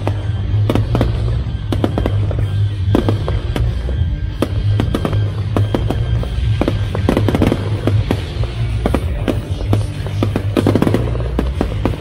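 A fireworks display: many sharp bangs and crackles of bursting fireworks in quick, irregular succession, over loud music with a heavy bass.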